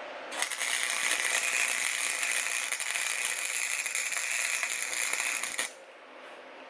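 Electric welding arc crackling steadily for about five seconds while a nut is welded onto a broken bolt in an engine block, starting and stopping abruptly as the trigger is pulled and released.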